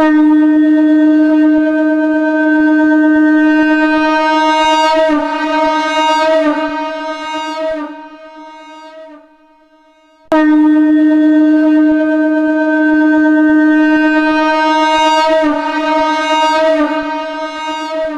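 Two identical blasts of a shankh (conch shell) sample pitched at D#, the second starting about ten seconds in. Each starts abruptly on a steady, bright note, then wavers and dies away.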